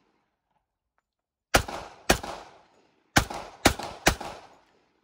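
Five shots from a 1918 Colt M1911 "Black Army" .45 pistol, each with a short echoing tail. The first two come about half a second apart, then after a pause of about a second three more follow at about the same pace.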